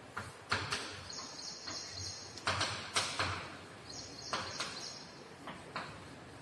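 Chalk writing on a blackboard: irregular taps as the chalk strikes the board, with two longer scratchy strokes, about a second in and again a little past four seconds.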